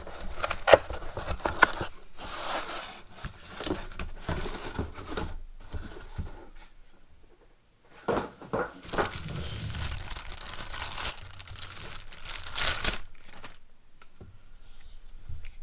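Packaging crinkling and tearing in irregular bursts, with a few knocks and clicks, as a new air ratchet is unwrapped. There is a short pause just before the middle.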